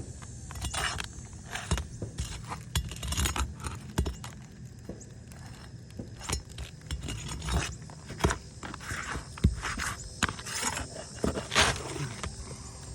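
An asphalt shingle being worked loose and pulled off a roof: irregular scraping with sharp clicks and knocks as it is freed.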